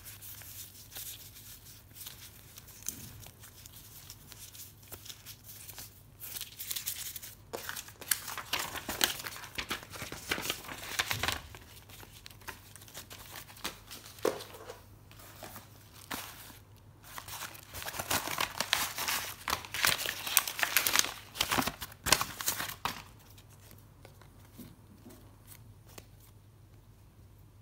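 Packaging being unwrapped by hand: crinkling and tearing in two stretches of busy rustling, the second one the louder, with quieter handling noises between.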